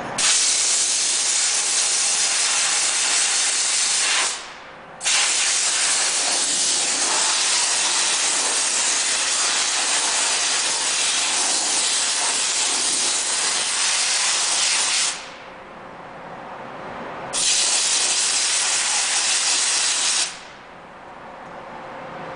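High-pressure steam cleaner's hand wand jetting steam: a loud, steady hiss in long bursts. It stops briefly about four seconds in, again for about two seconds around fifteen seconds, and cuts off about twenty seconds in.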